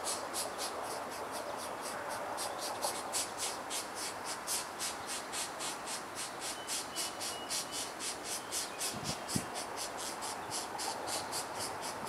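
Pileated woodpecker nestlings begging in the nest cavity: a rapid, even series of high-pitched pulses, about five a second, without a break. A couple of soft low thumps come about nine seconds in.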